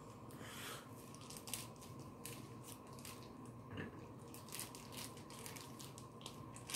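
Faint crinkling of a plastic bag of cream cheese being twisted and squeezed by hand: an uneven run of small crackles.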